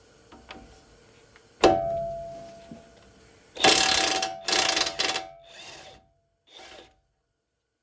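Hand tools working loose the tie rod end nut: a sharp metallic clank with a short ringing, then two loud brief rattling bursts of the tool on the nut and two fainter ones, before it goes quiet.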